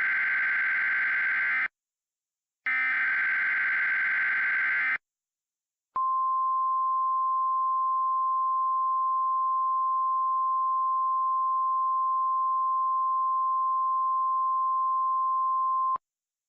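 Emergency Alert System SAME header data bursts: two harsh screeching bursts about a second apart. Then the NOAA Weather Radio 1050 Hz warning alarm tone holds steady for about ten seconds and cuts off, announcing an emergency alert broadcast.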